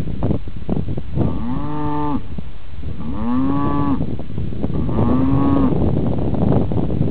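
A calf mooing three times, each moo a little under a second long, rising and then falling in pitch, about a second apart.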